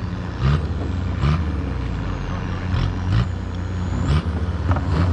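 A steady low drone with half a dozen short hollow knocks or slaps spread through it, typical of water slapping against the plastic floats of a floating pontoon dock.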